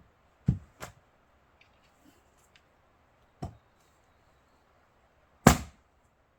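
Fiskars X27 splitting axe striking pine rounds: four sharp knocks at uneven intervals, two close together near the start and the loudest near the end.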